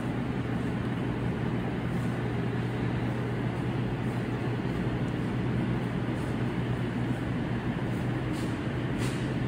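Mediseal blister packaging line running: a steady low machine hum with a constant low tone, and faint clicks roughly every two seconds from its cycling stations.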